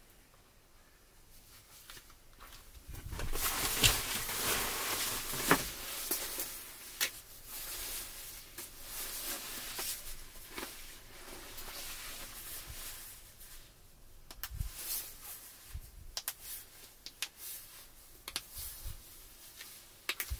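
Rustling of a jacket's fabric as it is pulled on and settled, starting about three seconds in, with scattered light clicks.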